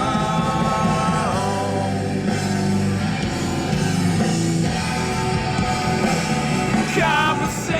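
Background music: a song with a sung or rapped vocal over guitar and a steady beat.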